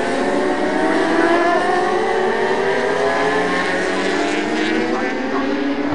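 Several racing motorcycle engines running hard on the circuit, their notes overlapping and slowly sliding in pitch as the bikes pass. A brief rise-and-fall in one engine note comes about a second and a half in.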